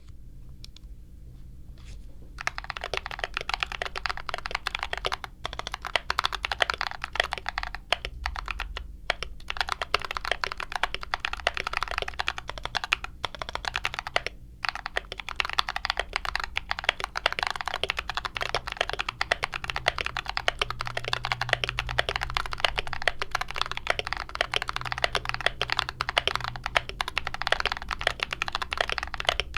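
Fast, continuous typing on a mechanical keyboard, many keystrokes a second, with a few brief pauses. It is fainter for the first couple of seconds.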